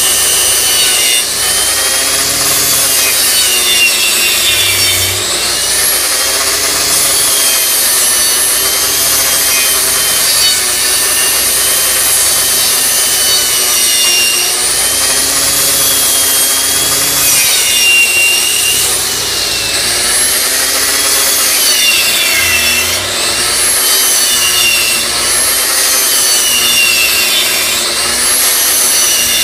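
12-amp angle grinder on a homemade copy-lathe carriage cutting into a spinning wooden spindle: a loud high whine over a rasping cut. The whine falls and rises in pitch again and again as the grinder is worked along the turning wood.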